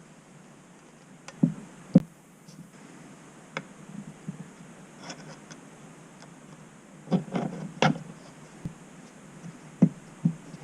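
Scattered knocks and clicks of starter motor parts being handled and fitted together, as the housing is worked back over the armature against the pull of its magnets. Two sharp knocks come about a second and a half in, and a cluster of them near the two-thirds mark.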